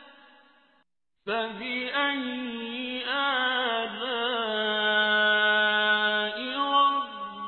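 Solo male voice chanting Quran recitation, unaccompanied, with long, ornamented, wavering notes. A phrase fades into a brief silence about a second in, then a new phrase begins and holds a long steady note near the middle.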